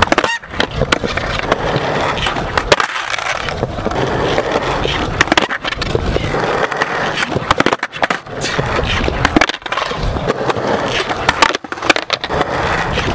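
Skateboard wheels rolling on smooth concrete, broken by repeated sharp pops and clatters as the board is snapped and flipped in beta flip attempts and slaps back down on the ground.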